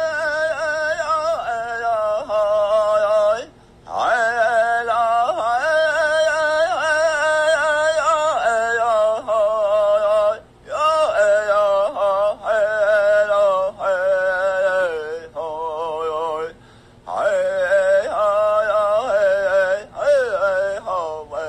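A man's solo chant in the style of a Native American song, with no drum. He holds long, high, wavering notes in phrases several seconds long, with short pauses between them, and some phrases slide down in pitch at the end.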